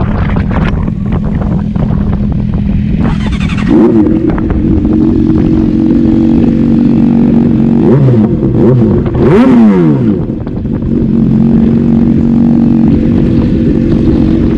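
Sport motorcycle engine idling, its idle stepping up about four seconds in, then blipped twice with quick rises and falls in revs around the middle.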